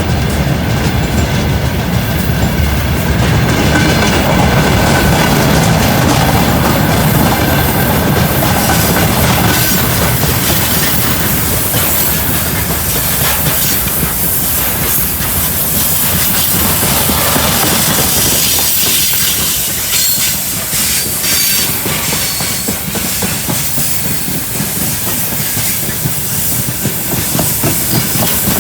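Freight train rolling through a curve, its wagons' wheels rumbling and clattering on the rails, with thin high squealing tones from the wheels grinding against the curved rail. The sound eases off somewhat in the second half.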